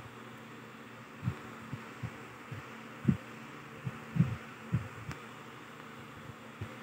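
Irregular dull low thumps of fingertips tapping and swiping a phone's touchscreen, picked up through the phone body by its own microphone, over a steady background hum.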